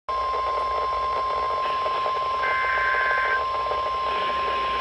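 NOAA Weather Radio warning alarm tone: a single steady tone of about 1050 Hz sounding without a break over radio hiss, the attention signal that comes before a warning message.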